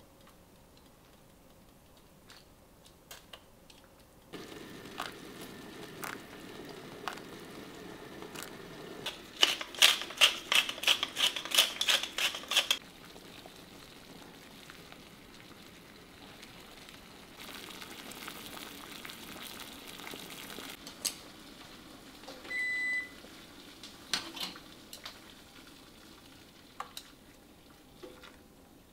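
Kitchen sounds. A steady low hum starts about four seconds in. Around ten seconds there is a quick run of about a dozen sharp clicks, and near the end a kitchen appliance gives one short electronic beep, with light clatter between.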